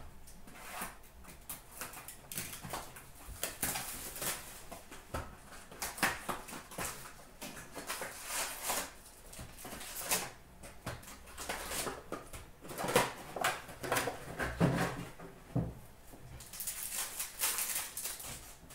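Foil trading-card pack wrappers crinkling and tearing as packs are opened by hand, with cards rustling and shuffling, in quick, irregular crackles.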